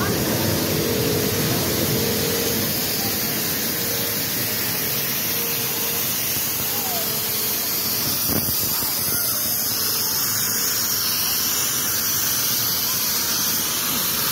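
Steady loud hiss of a snow machine blowing cold air and artificial snow.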